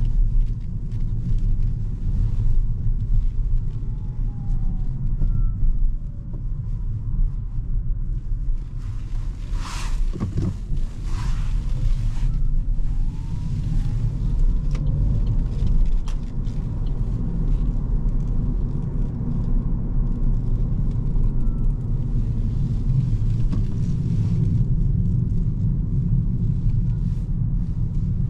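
In-cabin sound of a 2023 Opel Corsa-e electric hatchback driving at low city speed: a steady low road and tyre rumble, with a faint electric-motor whine that glides up and down in pitch as the car speeds up and slows. Two brief rushes of hiss come about ten seconds in.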